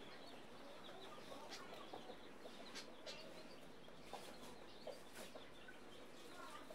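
Hen clucking softly to her newly hatched chicks, with short, faint calls scattered throughout.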